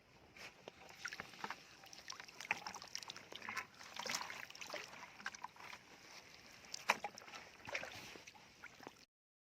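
Shallow seawater splashing and sloshing irregularly, with many small sharp clicks and crackles, as someone wades and forages in the water; it cuts off suddenly near the end.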